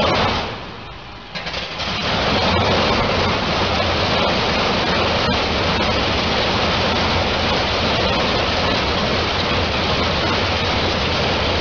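Large multi-row radial aircraft piston engine running with its propeller turning, a loud, steady, dense roar. It drops briefly about half a second in, then comes back about 1.5 s in and holds steady.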